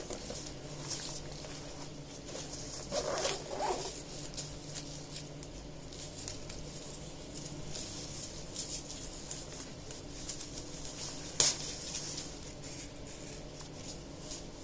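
Light rustling and small clicks from a backpack being handled and its pockets opened and checked, with one sharp click about eleven seconds in.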